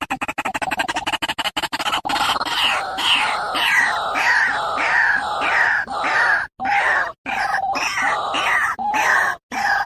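White-breasted waterhen calling: a fast pulsing chatter at first, then a run of repeated harsh croaking notes, about two a second, broken by a few abrupt short gaps.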